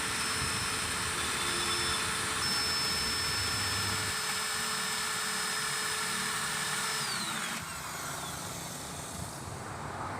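Electric drill running at a steady speed, drilling out the rivets of a car's inner door panel. Its steady whine falls in pitch and stops about seven seconds in, leaving a quieter hum.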